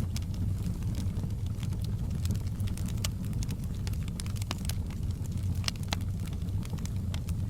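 Fireplace fire burning: scattered crackles and pops over a steady low rumble.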